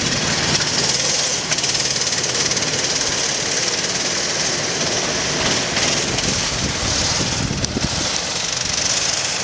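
Go-kart engines running as karts drive around the track; a loud, steady mechanical buzz that starts abruptly.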